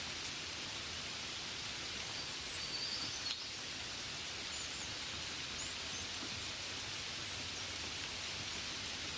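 Steady rain hiss, with faint high bird chirps about two to three seconds in and again a little past halfway, and one light tap at about three seconds.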